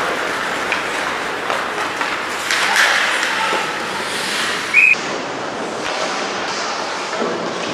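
Ice hockey play in an arena: skates scraping on the ice and sticks clicking, with a short high tone just before five seconds in.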